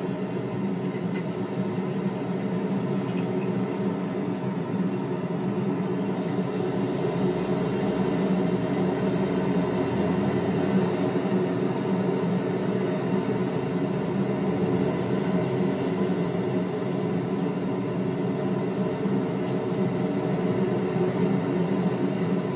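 A steady droning rumble with a low hum running under it, unbroken and even in level.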